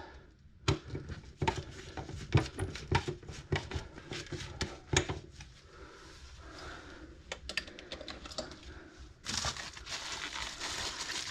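Irregular clicks and taps of screws being tightened into a smoke-detector mounting bracket. From about nine seconds in, plastic crinkling as the dust cover is pulled off the new smoke detector.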